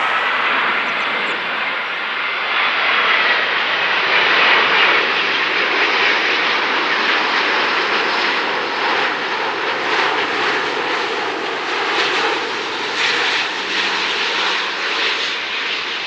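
Airbus A350-900's Rolls-Royce Trent XWB engines running at high power: a loud, steady rush of jet noise with a faint high whine in the first few seconds.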